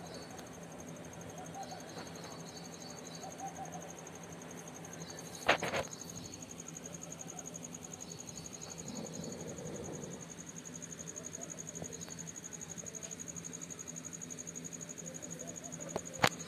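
A steady, high, finely pulsing insect trill, with fainter chirps coming and going beneath it. Two sharp knocks, one about five seconds in and one near the end, are the loudest sounds.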